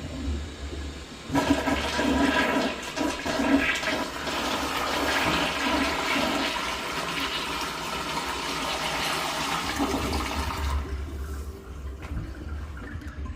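Rich Plus toilet flushing: a rush of water starts about a second in, runs strongly for about nine seconds, then dies away near the end.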